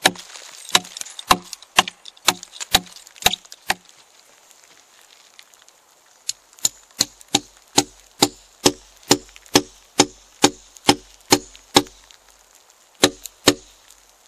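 Steel hammer striking nails into a Douglas fir log, in quick runs of sharp metallic blows about two a second: eight, then after a pause of two seconds about fourteen more, then two near the end.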